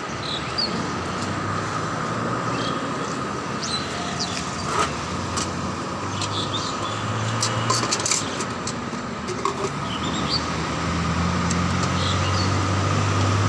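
Street traffic noise with a steady low engine hum that grows louder in the second half, plus scattered sharp clicks and a few short high chirps.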